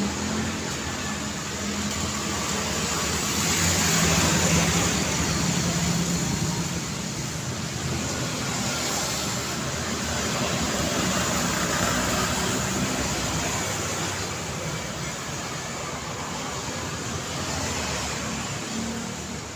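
Street traffic on a busy city road: a steady wash of engine and tyre noise from passing vehicles, swelling louder as vehicles go by about four and twelve seconds in.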